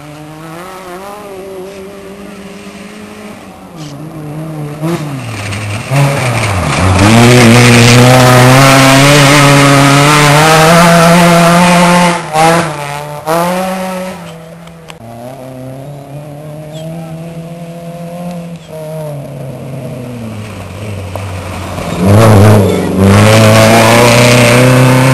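Rally cars running flat out along a gravel stage, their engines revving hard with sudden breaks in the note at gear changes and lifts. The loudest passes come from about a quarter of the way in to halfway and again near the end; in between, the engine sound fades away as a car recedes.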